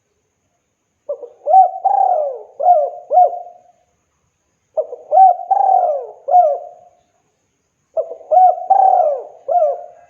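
A spotted dove (tekukur) cooing: three full song phrases about three and a half seconds apart, each a run of several rising-and-falling coos.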